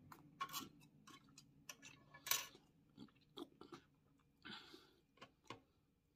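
A person chewing a mouthful of food with open-mouthed lip smacking: a string of small, soft, wet clicks, one louder about two seconds in.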